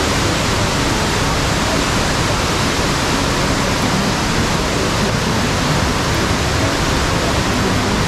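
Waterfall plunging into a rock pool close by: a loud, steady rush of falling water.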